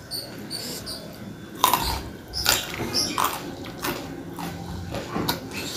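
Close-miked chewing and mouth sounds of eating: irregular wet smacks and crunches, a few a second, with fingers handling food.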